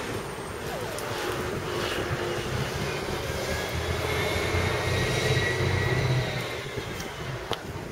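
Outdoor street background with wind on the microphone; a passing engine hum swells louder around the middle and then fades away.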